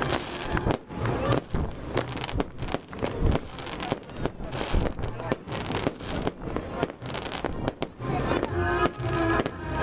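Fireworks exploding in quick succession, many sharp bangs and crackles one after another, with music playing underneath that becomes clearer near the end.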